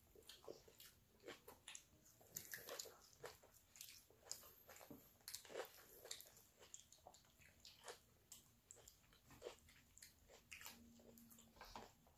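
Faint chewing and biting of people eating taco salad and chicken nuggets: a scatter of short, irregular mouth clicks.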